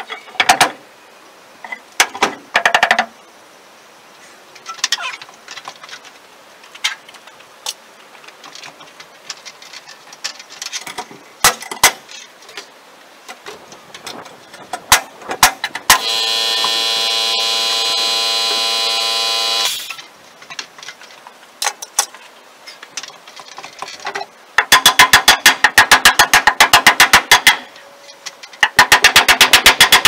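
Power drill working into the wooden trim overhead: a steady motor whirr for a few seconds about halfway through, then two bursts of rapid rattling as screws are driven near the end. Scattered knocks and clicks come earlier, the loudest just after the start.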